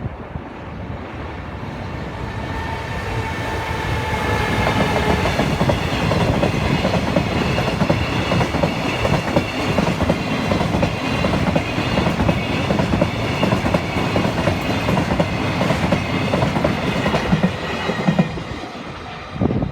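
Freight train hauled by an electric locomotive passing close by. The rumble grows over the first few seconds, then settles into a steady clickety-clack of wagon wheels over rail joints.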